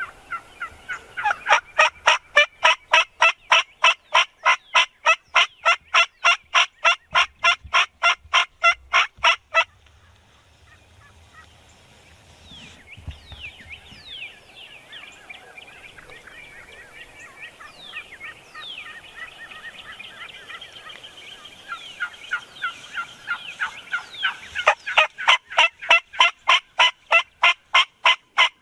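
Turkey calling: a long, fast run of loud yelps, about four a second, that stops abruptly about ten seconds in. Quieter scattered high chirps and calls follow, then another fast run of yelps starts near the end.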